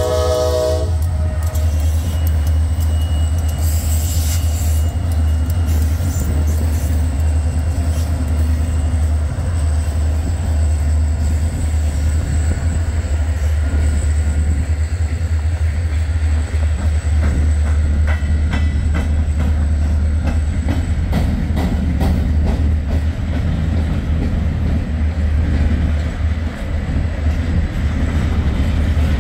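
Freight train passing: the locomotive horn cuts off about a second in, then a steady heavy rumble of the diesel locomotive and rolling cars, with wheels clicking over rail joints for several seconds around the middle.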